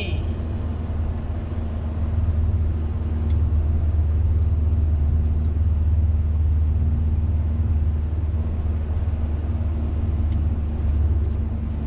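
Steady low rumble of a passenger vehicle driving, heard from inside the cabin: engine and road noise with a faint steady hum.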